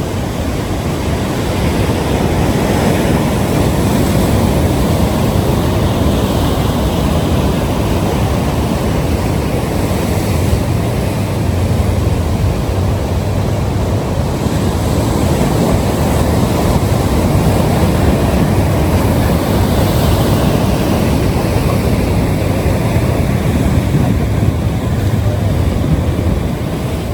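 Ocean surf breaking and washing on the shore: a loud, steady low rumble that swells and eases slowly.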